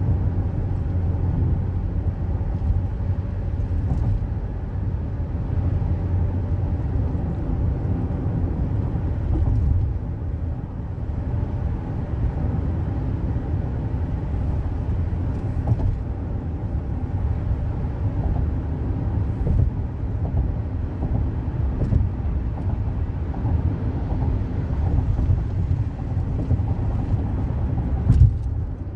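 Steady road and engine noise of a car on the move, with one short thump near the end.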